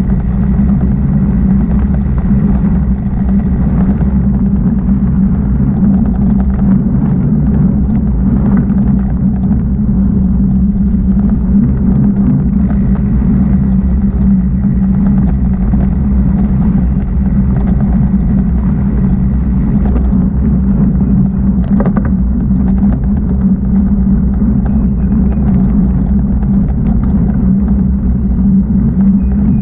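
Mountain bike riding along a dirt singletrack, heard as a loud, steady low rumble on a bike- or helmet-mounted camera microphone, with occasional small clicks and rattles.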